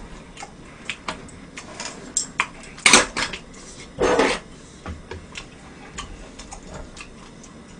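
Metal tongs and utensils clacking against plates and a grill pan: scattered light clicks, with louder clatters about three and four seconds in.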